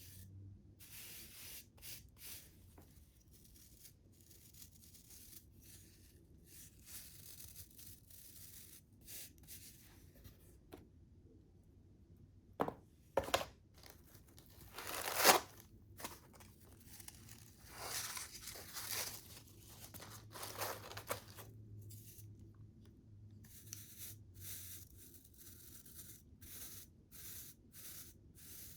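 Packaging being handled and torn open: scattered rustling and crinkling, with a run of louder sharp tearing rips around the middle, the loudest one about halfway through.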